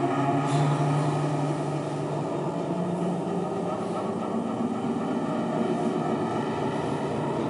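Live improvised sound score of layered sustained drones: many steady tones held together over a low rumble, with a deeper tone swelling in about half a second in and fading after a couple of seconds.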